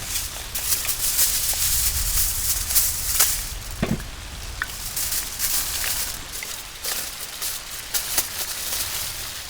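Rain falling steadily, with many sharp irregular taps of drops through it, densest in the first few seconds.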